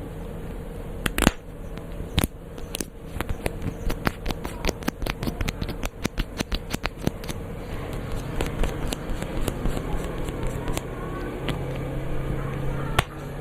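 Close-up ASMR trigger sounds: sharp, irregular clicks and taps, coming several times a second through the middle, over a faint steady hum.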